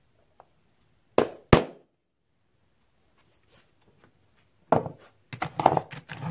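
Steel hand tools knocking against a wooden workbench as letter stamps and a ball-peen hammer are picked up and set down. Two sharp clacks come about a second in, then a quick run of several knocks near the end.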